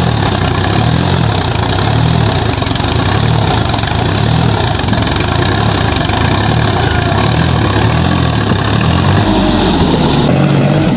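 Sonalika 60 RX tractor's diesel engine running hard under load while the tractor is stuck in mud, its front wheels rearing up. The engine note rises and falls about once a second.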